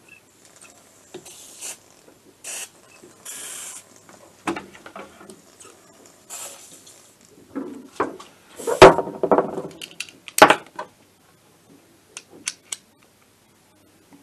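Several short hisses of a WD-40 aerosol can sprayed in bursts over a Minarelli AM6 engine whose crankcase is under air pressure, hunting for an audible air leak. Then knocks and clatter of handling on the workbench, the loudest about nine seconds in, and a few light clicks near the end.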